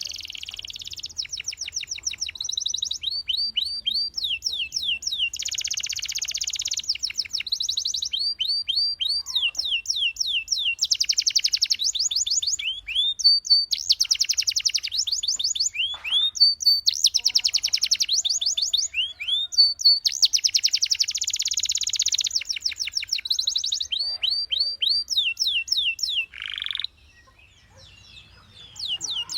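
Domestic canary singing: long, rapid trills of repeated high notes and fast rolled phrases, broken by short pauses. It falls quiet for about two seconds near the end, then starts again.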